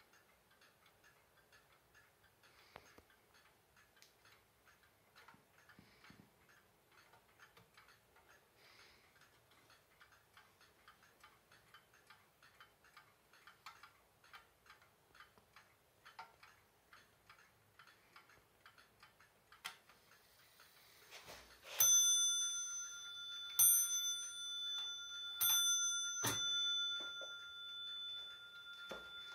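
Westerstrand cartel wall clock ticking steadily. About twenty seconds in, after a click, it strikes three times, each a ringing metallic note left to sound on, about two seconds apart, with a sharp knock just after the third.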